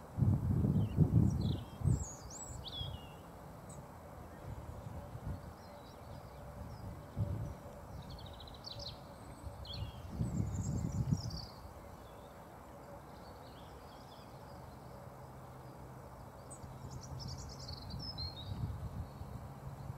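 Small songbirds chirping and singing in short scattered phrases. Two low rumbling bursts near the start and about ten seconds in are the loudest sounds, and a low steady drone comes in for the last few seconds.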